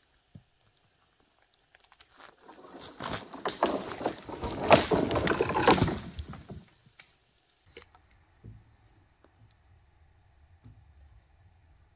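Footsteps and a long wooden pole moving through dry leaves and twigs on the forest floor: a few seconds of loud rustling and crackling in the middle, then a few faint knocks.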